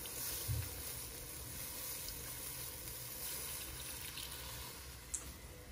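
Water poured from a glass over a spoon into a hot stainless-steel wok of chicken and potatoes: a steady pour, with a soft bump about half a second in.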